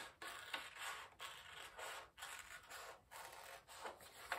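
Scissors cutting through paper: a series of faint snips and rasps with short pauses between strokes.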